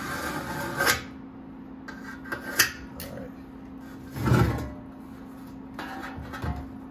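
A line being scored into an amplifier chassis panel: about a second of scratching rub that ends in a sharp click. Then a few clicks and a dull thump about four seconds in, as the panel and tool are handled, over a steady low hum.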